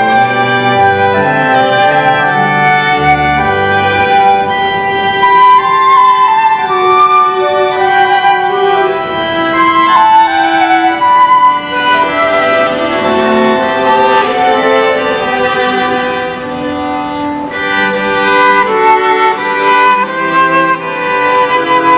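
Small ensemble of bowed strings with flute playing a slow classical piece, with sustained notes in several parts.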